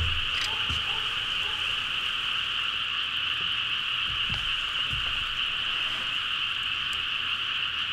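A steady, dense night chorus of frogs calling, with a few soft knocks as a griddle pan is handled on the table.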